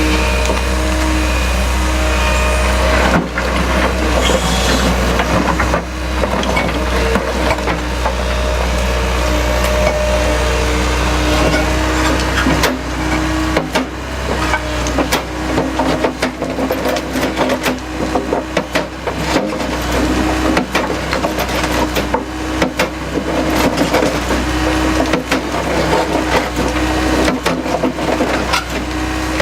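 Takeuchi TB175 excavator's diesel engine running steadily while an Anross CB100 Crusha bucket's automatically reciprocating jaw, driven from the breaker circuit, crushes concrete and sandstone. Continual cracking and crunching of breaking rubble, busier in the second half.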